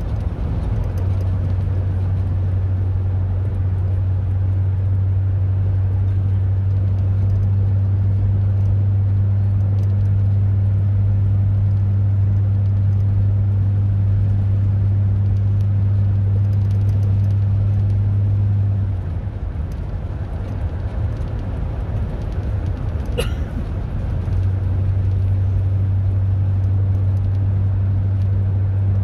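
A car driving along, with steady road noise and a strong low hum. The hum drops away for about five seconds two-thirds of the way through, then comes back. One sharp click sounds just before it returns.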